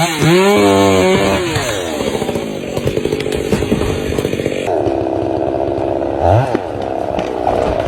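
Chainsaw engine revving, its pitch swooping up and down for the first second or so, then running steadily at high speed from about halfway through.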